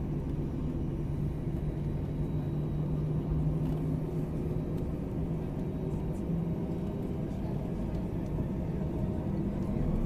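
Airliner cabin noise while taxiing: a steady low rumble from the turbofan engines at low thrust and the rolling airframe, with a low hum that fades about halfway through.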